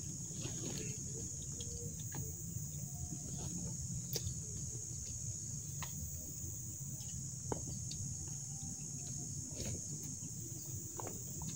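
Insects chirring steadily at a high pitch, with three sharp clicks in the middle over a low rumble.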